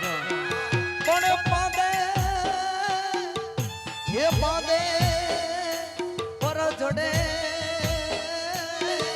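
Instrumental Gujarati folk raas music: a held, wavering melody line over a steady drum beat, about two hits a second, whose low hits fall in pitch.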